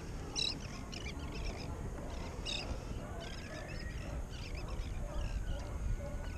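Birds calling in short, scattered notes, the clearest about half a second in and again about two and a half seconds in, over a low rumble of wind on the microphone.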